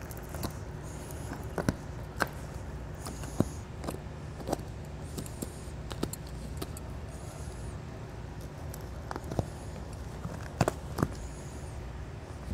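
Scattered clicks and light scrapes as a plastic RV plumbing vent cap is pried off sticky butyl tape and lifted away from the vent pipe, over a steady low hum.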